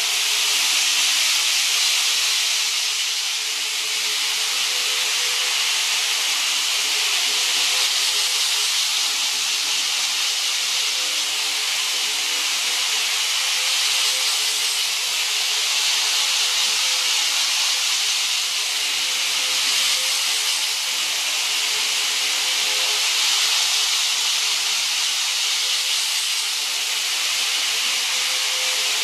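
N-gauge model Shinkansen trains running on plastic elevated slab-track viaduct: a steady hiss of wheels on rail with a faint steady hum underneath.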